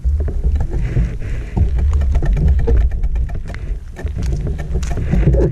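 Wind buffeting a bike-mounted camera microphone during a bicycle descent: a loud low rumble with many small clicks and rattles from the bike and mount on the road.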